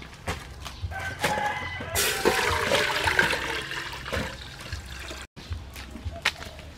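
Water and coconut milk poured from a metal bowl into an aluminium pot: a loud, splashing pour starting about two seconds in and lasting about two and a half seconds, with a few light knocks before and after.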